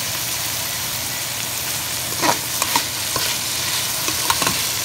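Beef tips and sliced onions sizzling as they fry in oil in a metal pot. A spoon scrapes and taps against the pot as they are stirred, most strongly about two seconds in and again near the end.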